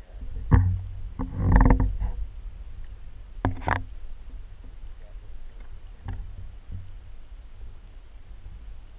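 Shallow lake water splashing and sloshing, with a knock about half a second in and louder splashes at about one and a half and three and a half seconds, over a low rumble of handling noise on the microphone.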